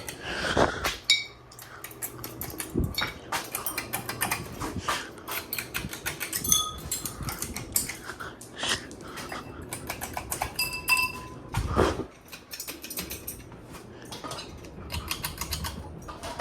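Several ceiling fans running in one room, with a faint steady motor hum under rapid, uneven clicking and clinking and a few short ringing metallic pings.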